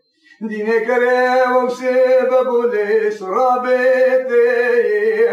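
A dengbêj, a Kurdish bard, singing alone and unaccompanied in a man's voice. He draws out long held notes with slides and ornaments between them, starting after a short breath about half a second in.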